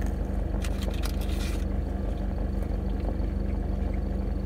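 Car engine idling, a steady low hum heard from inside the cabin. About a second in come crunchy chewing sounds from a bite of a crispy fried hash brown.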